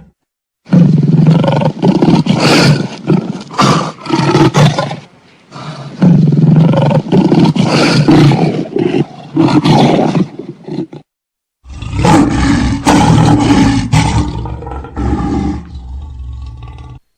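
Big cat roaring in three separate stretches of a few seconds each, each starting and cutting off abruptly.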